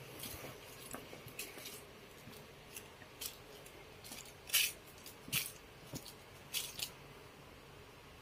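Soft swishes and rustles of a plush toy being waved and flapped against crib bedding, in short scattered strokes, the loudest about halfway through.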